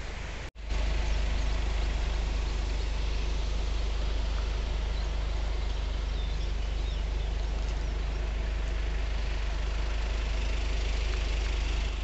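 Wind buffeting the microphone outdoors: a steady low rumble with an even hiss, breaking off for an instant about half a second in.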